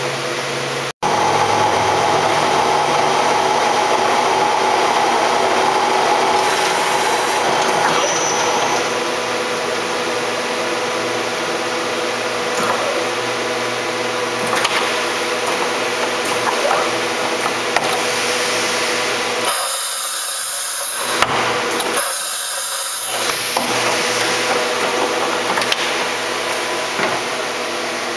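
Shizuoka B-15V CNC vertical machining center running under power, a steady whir and hiss with a steady whine in it from the spindle drive. Near two-thirds of the way through, the lower whir drops out twice for about a second each while the hiss carries on.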